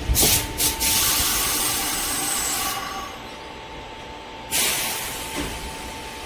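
Sudden bursts of loud hissing from a Sanyo Electric Railway train at the station, one right at the start that fades over about three seconds and another sharp one about four and a half seconds in. A faint steady high tone runs underneath.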